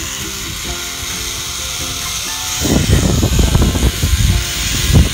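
Zip-line trolley running along a steel cable with a steady hiss, joined a little past halfway by heavy wind buffeting on the microphone.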